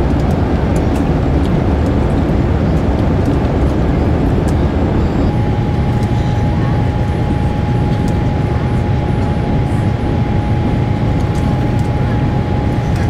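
Airbus A350-900 cabin noise while climbing out after takeoff: a steady, loud roar of the Rolls-Royce Trent XWB engines and rushing air, heaviest in the low end. About five seconds in, a thin steady whine joins it.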